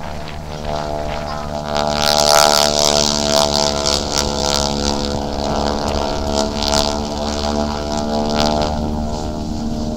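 Propeller biplanes' piston engines droning steadily overhead in an aerobatic display pass, the pitch sinking a little in the second half. Gusts of wind buffet the microphone.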